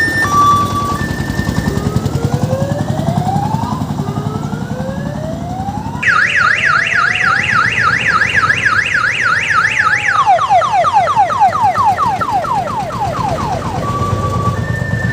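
Electronic multi-tone siren on an odong-odong mini tourist train cycling through its tones: a stepped two-note tune, two slow rising wails, a fast warbling yelp about four times a second, then rapid falling sweeps, with the two-note tune returning near the end. The train's crank-start diesel engine runs underneath.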